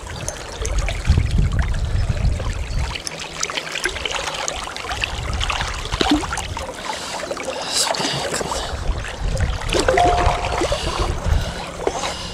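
River water splashing and gurgling around a hand as a brown trout is grabbed and lifted at the surface, with stretches of low rumble.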